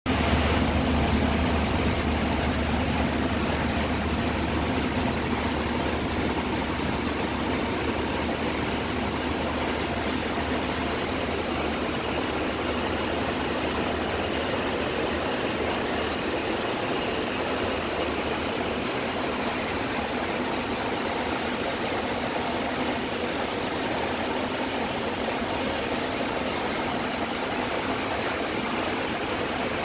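Steady rushing background noise of a Boeing 737 flight deck, with a low hum that is strongest at the start and fades away over the first dozen seconds.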